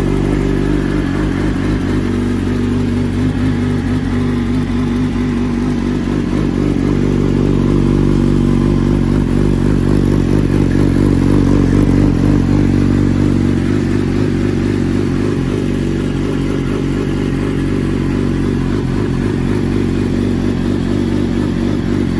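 2020 Yamaha R6's inline-four engine idling through an Arrow Thunder competition full exhaust system, still warming up from a cold start. It runs steadily, getting slightly louder around the middle before settling back.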